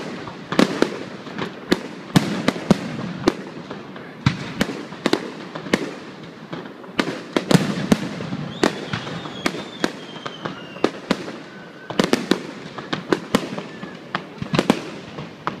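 Aerial fireworks display: shells bursting in a rapid, irregular run of bangs, several a second at times. A faint falling whistle runs through the bangs about halfway through.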